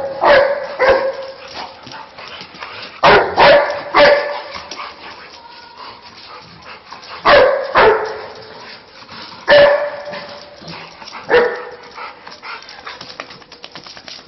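A dog barking: about ten sharp barks in groups of one to three, with pauses of a couple of seconds between the groups.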